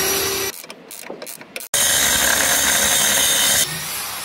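Cordless drill running: a short run, a quieter pause with a few clicks, then a louder steady stretch as a wide bit bores into wood, dropping to a lower running level near the end.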